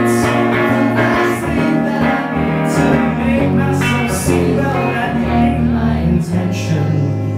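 Live pop song played on guitar: steady chords carrying an instrumental passage between sung lines.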